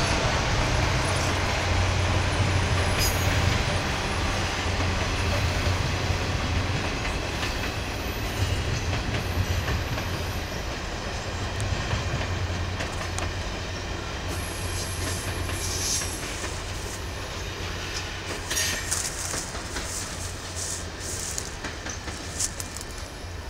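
Canadian Pacific Holiday Train freight cars rolling past, wheels rumbling and clicking over the rail joints, slowly fading. A few sharper high-pitched clicks and squeaks come near the end.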